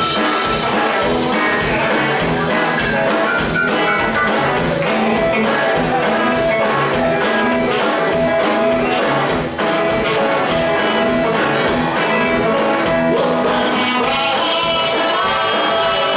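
Live band playing with a steady beat: electric guitars, bass, drums and a horn section of saxophones, trumpet and trombone.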